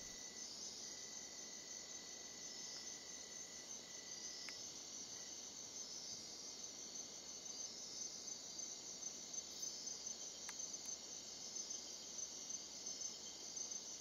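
Faint, steady night chorus of rainforest insects, a high-pitched continuous shrilling of crickets. A thinner single steady note runs underneath and drops out about four seconds in, and there are a couple of tiny ticks.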